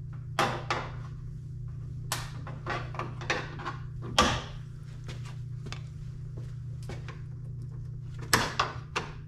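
Plastic push-pin clips on a Ford Bronco's grille being pried up and pulled out with a trim tool: irregular sharp plastic clicks and snaps, the loudest about four seconds in, with another quick run of them near the end.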